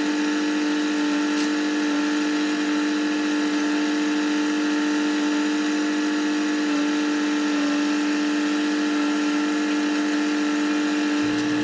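Log loader's engine running at a steady speed, an even, unchanging hum, as the knuckleboom works logs at the truck.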